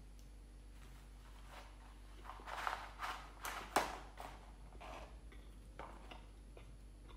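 Handling of food and packaging at a table: a short run of rustling and clattering strokes, loudest about two and a half to four seconds in, then a few light clicks.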